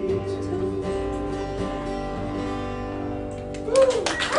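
Acoustic guitar's final strummed chord ringing out at the end of a song. Near the end, audience applause and a whoop break out.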